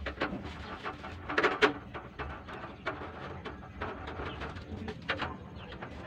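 Screwdriver and metal burner-mount parts of a gas stove clicking and clinking as screws are worked, a run of short sharp ticks with the loudest pair about one and a half seconds in.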